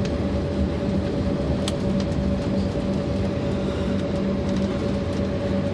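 Cabin noise of an Embraer 190 jet taxiing: the steady hum of its turbofan engines at taxi power, with a steady whine over a low rumble and a couple of faint clicks.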